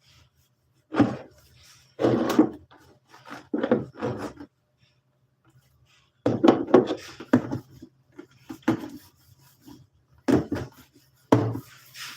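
Irregular bursts of rubbing and knocking, as of household things being handled and cleaned, with about a dozen short bouts of activity and a faint steady hum underneath.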